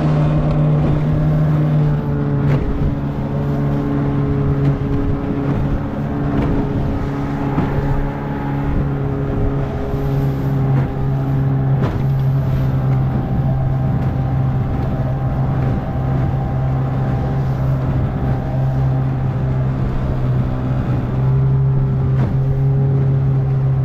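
Outboard motor on a small aluminium dinghy running steadily at speed, its tone dropping slightly about nine seconds in. Irregular slaps of the hull hitting chop and spray splashing over the bow.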